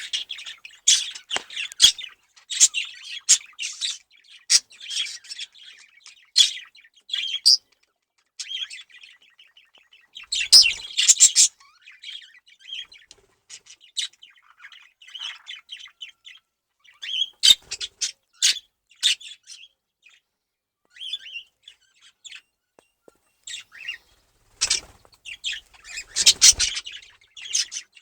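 Budgerigars chattering and chirping in quick, irregular high-pitched bursts, with a few louder, harsher outbursts about ten seconds in, around seventeen seconds and twice near the end.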